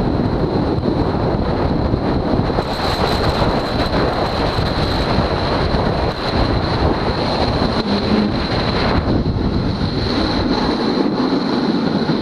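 Strong wind rushing and buffeting over the microphone during a fast snowboard run, mixed with the board sliding and scraping over icy snow. The rush is loud and continuous, easing slightly about nine seconds in.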